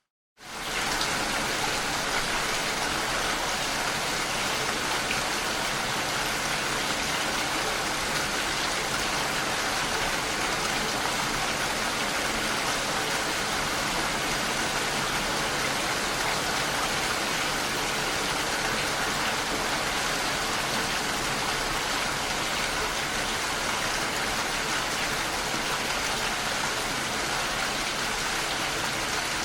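Steady rain falling, an even hiss. It starts abruptly, right after a moment of silence at the very start.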